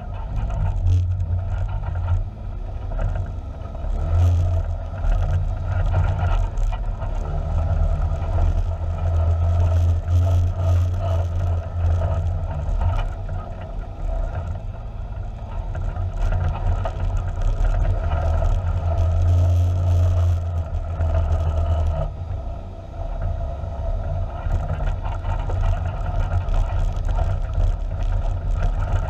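Side-by-side UTV engine running steadily at low trail speed, a deep drone that rises and falls a little, with frequent knocks and rattles from the vehicle jolting over rough ground.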